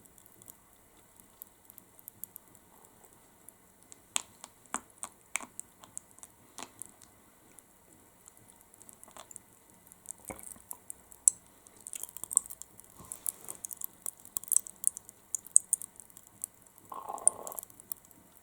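Popping candy crackling in the mouth as chocolate melts: faint, irregular tiny pops and clicks that come thicker about twelve seconds in. A short soft burst of noise near the end.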